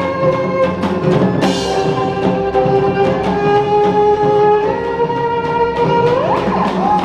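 Background music: held orchestral string notes over a steady percussive beat, with a rising swoop near the end.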